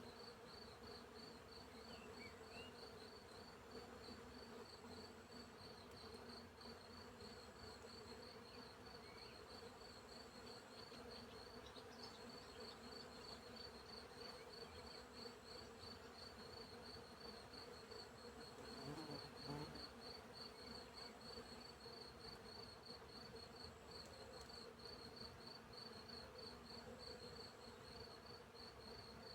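Field crickets chirping in a steady, even pulse, with a second, higher chirping that comes and goes, over the faint steady hum of bees. About two-thirds of the way in, a bee buzzes briefly louder, close past.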